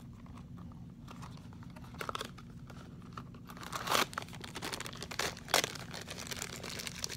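Crinkly foil blind bag being handled and torn open, with sharp crackles about four and about five and a half seconds in.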